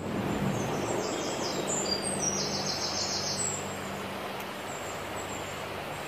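Small birds chirping in quick high runs during the first half, over a steady rushing noise of outdoor ambience.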